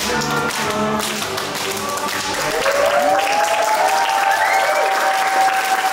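Music ends about a second in and a crowd begins clapping and cheering. One long rising whoop is held over the applause toward the end.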